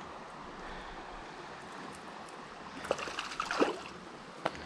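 Creek water running steadily, with a few brief sharp knocks or splashes about three seconds in and a single click near the end.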